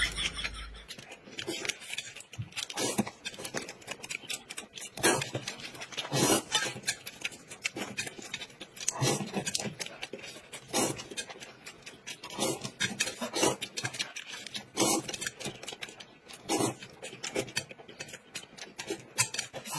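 Close-up eating sounds: noodles slurped and chewed, and quail eggs chewed, in a string of short, irregular mouth sounds every second or so.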